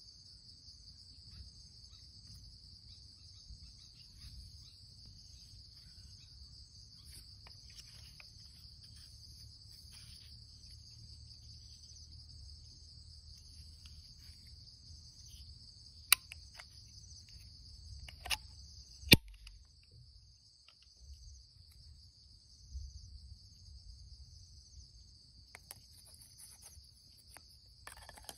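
Steady chorus of insects. Three sharp metallic clicks in the second half come from a break-action 12-gauge pistol styled as a 1911 being handled and opened.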